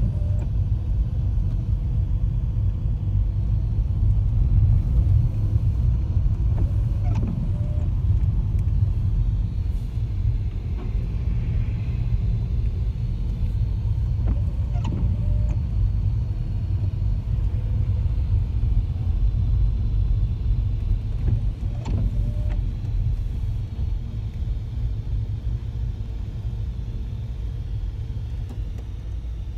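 Steady low rumble of a car heard from inside the cabin as it drives slowly along a wet road, with a few faint clicks spaced several seconds apart.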